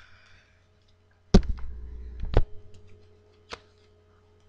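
Handling noise from a deck of playing cards held close to the microphone: four sharp clicks, the loudest about a second and a half in, with a low rumble between the first two.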